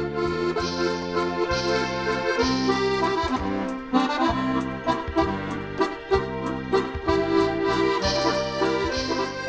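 Accordion music: a melody over a pulsing rhythm of low bass chords.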